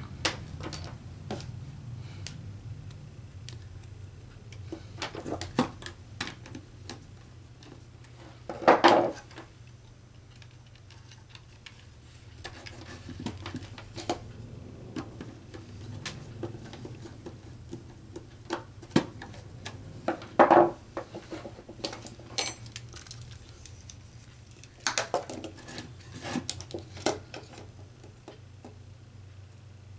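Handling noise of bench wiring work: wire, plastic contactor parts and a screwdriver being moved and set down on a wooden bench, making scattered clicks and knocks, with louder knocks about nine and twenty seconds in. A low steady hum runs underneath.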